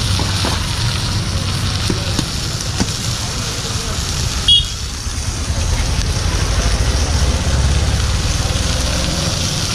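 Wood-and-coal fire burning under a large iron griddle, with a light sizzle from the fish and prawns on it, over a steady low rumble of street traffic. A single sharp click with a brief high beep comes about four and a half seconds in.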